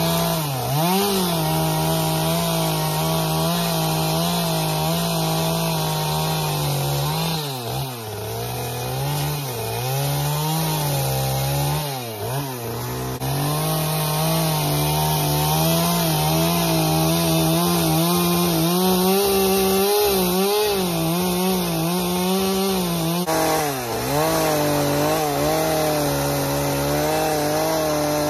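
Husqvarna gas chainsaw running at high revs while cutting into a large log. Its engine note dips briefly and picks back up about five times.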